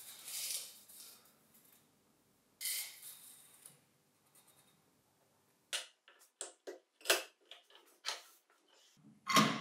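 Bar clamps being handled and adjusted on a glued-up frame on a wooden workbench. Two soft rustling scrapes come first, then a run of light clicks and knocks from about six seconds in, with the loudest knock near the end.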